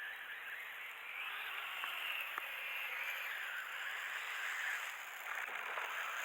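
Radio-controlled ATV's motor whining, its pitch rising and falling as the throttle changes, with a few faint clicks.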